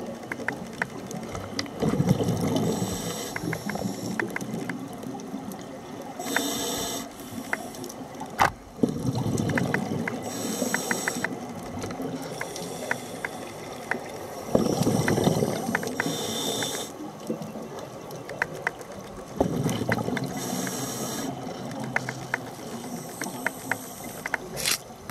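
Scuba diver breathing through a regulator: a hissing inhale through the demand valve every few seconds, each followed by a rumble of exhaled bubbles. Scattered faint clicks throughout, and one sharper click about eight seconds in.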